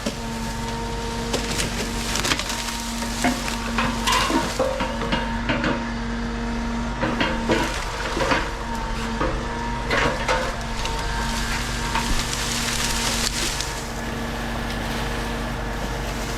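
Irregular knocks and clatter of a structure being put back together, over a steady engine hum.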